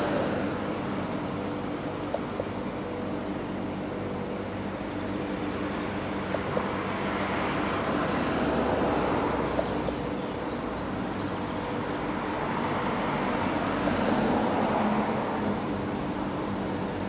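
Outdoor rushing noise, like passing traffic, that swells and fades twice over a faint steady hum. A few small clicks come from the buttons of a DAB+ radio being pressed to step through its stations. The radio's own programme audio is not heard.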